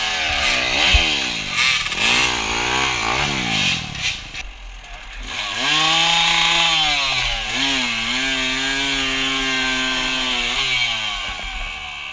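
Off-road motorcycle engine revving, its pitch swinging rapidly up and down over the first few seconds, then pulling steadily at higher revs from about six seconds in, with a brief drop and recovery near the middle of that run.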